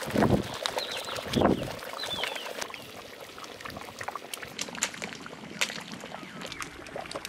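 Thick fish curry sloshing in a large pot as a ladle stirs it, with two heavy splashes in the first second and a half. After that the boiling gravy goes on more quietly with many small pops and crackles.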